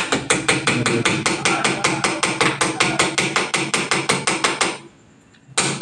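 Electric drill boring into a hard concrete wall: a rapid, even knocking of about seven strokes a second for nearly five seconds, then a short second burst near the end.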